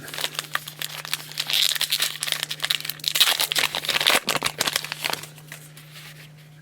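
Foil wrapper of a trading-card pack being torn open and crinkled: a dense crackling rustle for about five seconds that then dies away.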